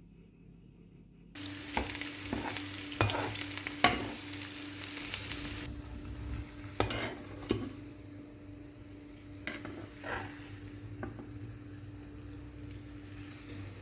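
Food sizzling in a frying pan, with a utensil stirring and knocking against the pan several times. The sizzle starts abruptly about a second in, is loudest for the first few seconds, then settles lower, over a steady low hum.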